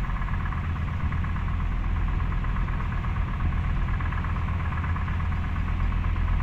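Car ferry's engines running steadily under way: a deep, even hum with a fainter steady whine above it.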